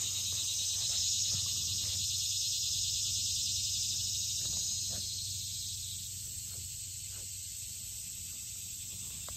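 Steady high-pitched chorus of insects trilling in a summer swamp, easing a little about six seconds in.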